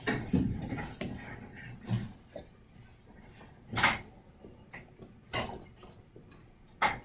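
Scattered knocks, clicks and rustles of handling, with two sharper knocks, the loudest about four seconds in and another near the end.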